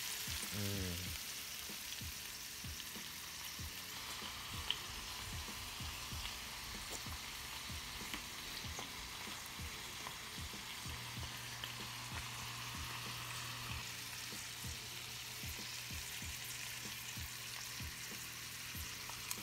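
Mussels and littleneck clams sizzling in butter and oil in a hot frying pan, a steady hiss with scattered crackles and pops as the shellfish steam open. A low steady hum joins in about eleven seconds in.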